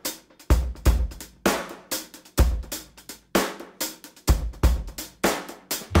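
Background music: a drum kit playing a steady beat of kick, snare and cymbals, with no other instruments.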